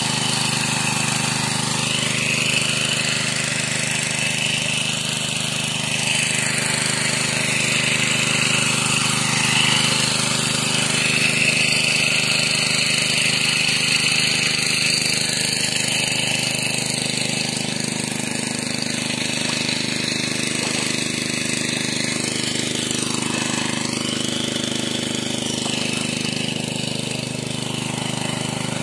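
Greaves MK 20 kerosene/diesel pump set's small engine running steadily under load, with water gushing out of the pump's outlet and splashing onto the ground as a wavering hiss over the engine.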